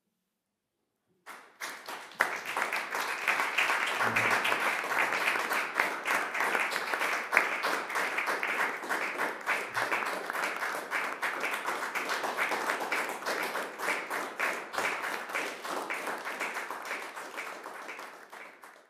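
Audience applauding, starting about a second in and slowly thinning out before cutting off near the end.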